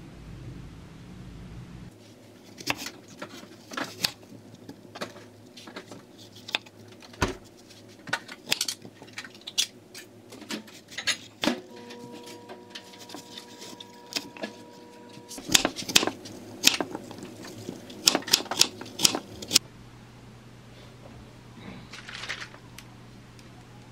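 Kitchen knife cutting an apple into chunks on a wooden cutting board: a run of irregular sharp knocks as the blade goes through the fruit and hits the board, loudest and quickest in the last few seconds before they stop.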